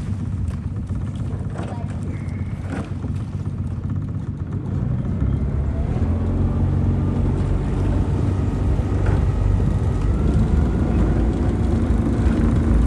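Outboard motor of a coaching launch running steadily, growing louder about halfway through.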